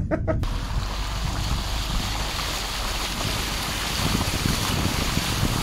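Car tyres driving through a long, wide puddle on a road, spraying water in a steady rushing splash, with wind on the microphone.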